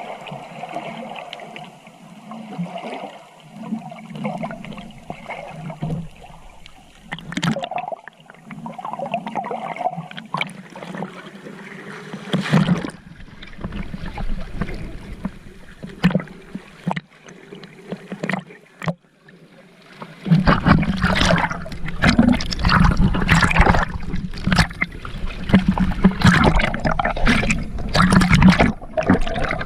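Water sloshing and gurgling close to the microphone. About two-thirds of the way through it turns louder and rougher, with rapid splashes and crackles.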